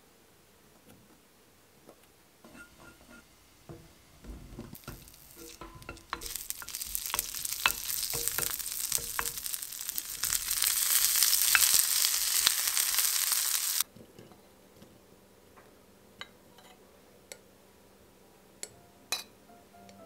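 Mini sausages and frozen broccoli sizzling in a frying pan as they are stirred, with clicks of the utensil against the pan. The sizzle builds up and then cuts off suddenly about two-thirds of the way through. A few light clicks and knocks come before and after it.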